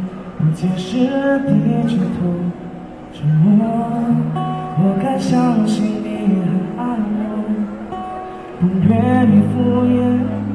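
A live singer performing with acoustic guitar accompaniment, amplified through stage PA speakers, in sung phrases with held notes.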